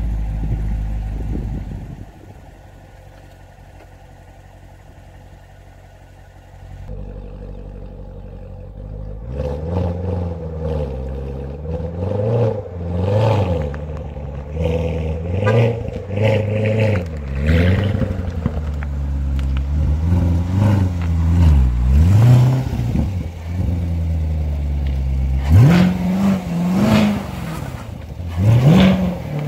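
Chevrolet C7 Corvette's V8 engine running on its first drive after the rebuild: a steady idle, then low-speed driving with the revs rising and falling again and again, and a quick sharp rev about 25 seconds in.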